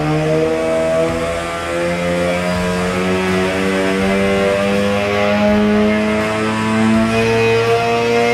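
Arctic Cat Catalyst 600's two-stroke twin with a Straightline performance single pipe running hard under load on a snowmobile dyno, its pitch climbing steadily as the pull sweeps it up through the rev range.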